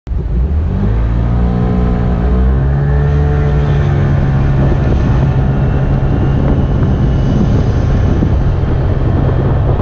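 A motor vehicle's engine pulling away from a stop, its pitch rising over the first couple of seconds. It then runs steadily as wind and road noise build with speed.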